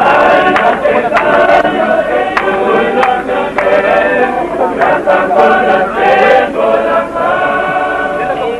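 A group of people singing together in chorus, men's voices among them, loud and close.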